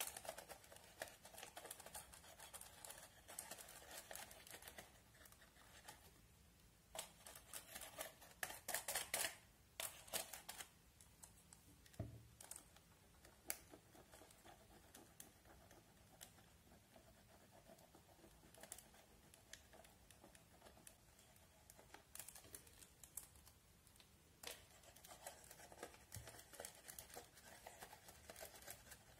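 A small plastic spatula scraping pressed eyeshadow out of the pans of a toy makeup palette: faint, fine scratching that comes in spells, busiest about a quarter of the way in and again near the end.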